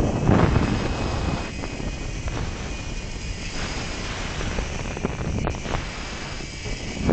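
Wind rushing and buffeting over the microphone of a camera riding a fast zip-line descent, loud at first and easing off about a second in, with a faint steady high whine underneath.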